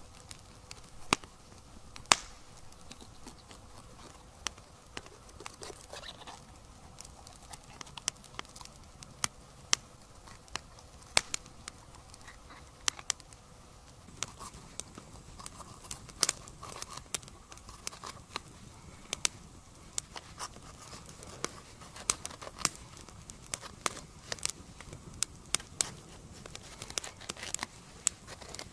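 Wood campfire crackling with many sharp, irregular pops, along with a knife cutting vegetables on a flexible plastic chopping board.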